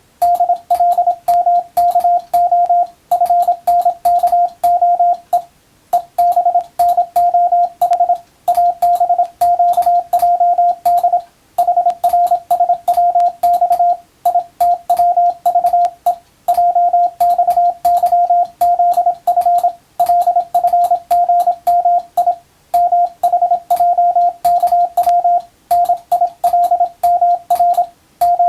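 Morse code (CW) practice signal: a single mid-pitched beep keyed rapidly into dots and dashes, with a sharp click at the start and end of each element. It is sent as English-text telegram practice in groups separated by short pauses every two to three seconds.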